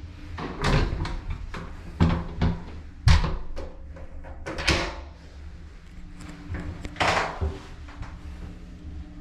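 Shower booth door being handled: a round knob turned, the latch clicking and the door knocking against its frame in a series of sharp knocks and clicks, the loudest about three seconds in. A steady low hum runs underneath.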